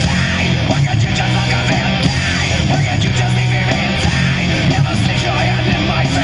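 Heavy rock music with electric guitar.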